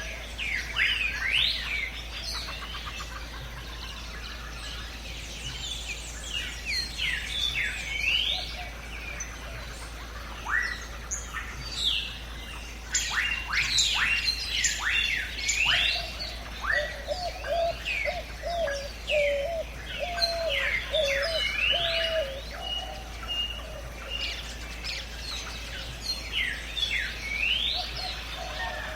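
Many birds calling at once in a jungle soundscape: quick whistled chirps sliding up and down in pitch. About halfway through, a lower warbling call repeats for several seconds. A steady low hum runs underneath.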